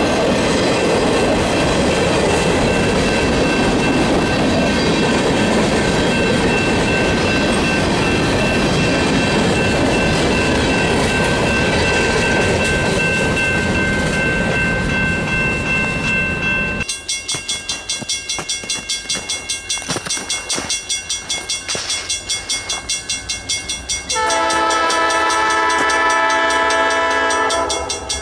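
Freight train of boxcars rolling past, steel wheels rumbling with a faint steady high squeal. After an abrupt cut, a grade-crossing bell rings rapidly and steadily, and near the end a locomotive horn sounds one long chord for about three and a half seconds as the train approaches.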